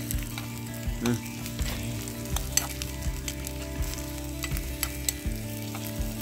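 Chopped onions sizzling as they fry in a small metal pot over a wood fire. A spoon stirring them scrapes and clicks against the pot again and again, over a steady low hum.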